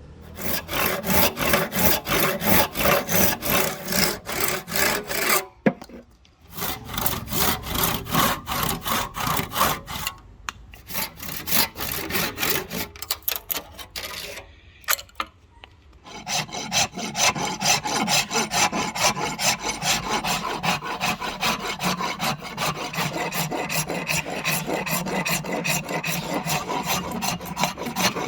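A hand tool, a rasp or a saw, being worked back and forth on hardwood in quick repeated strokes. There are short pauses in the first half, and after about sixteen seconds the strokes run steadier and faster.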